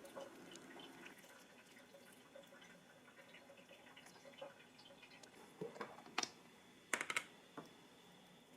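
Faint scattered clicks and taps of kitchen work, with a few sharper clicks about six and seven seconds in.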